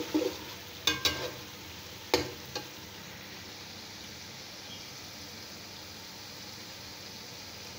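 Chicken and potato korma sizzling as it fries in a metal pot, with a spoon clicking against the pot a few times in the first three seconds, then a steady sizzle.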